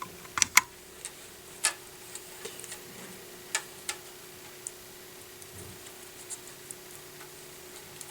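Sharp, scattered clicks and taps of hands handling a harp string, masking tape and a light strip, taping the string to the end of the strip. The clicks are most frequent in the first four seconds and fainter after, over a faint steady hum.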